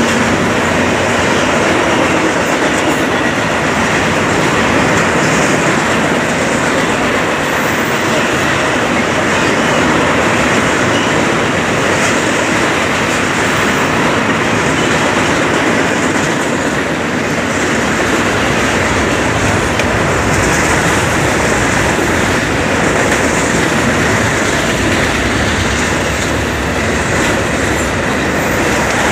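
Freight train rolling past: the steel wheels of loaded flatcars and autorack cars clattering and rumbling on the rails in a loud, steady noise.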